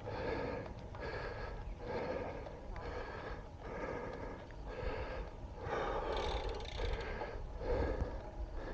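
A cyclist breathing hard while pedalling uphill, about one heavy breath a second, over a low rumble of wind on the microphone.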